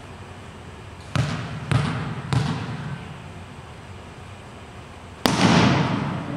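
Volleyball thuds echoing in a gymnasium: three thuds about half a second apart a little over a second in, then a sharp, louder smack of the ball being hit about five seconds in that rings out in the hall.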